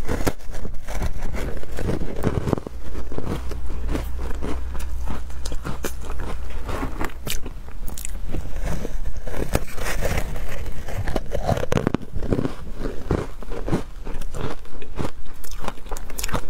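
Matcha-powder-coated ice being bitten and chewed: a dense run of loud, irregular crunches and cracks as the ice breaks between the teeth.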